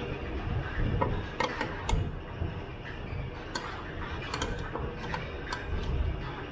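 A hand wrench clicking and tapping against metal as a fitting is worked on, in sharp, irregular clicks, some in quick pairs and triplets, over a steady low shop rumble.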